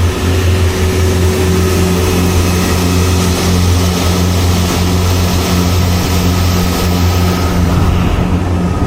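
Steady engine hum and road noise inside a moving vehicle, unbroken and even throughout.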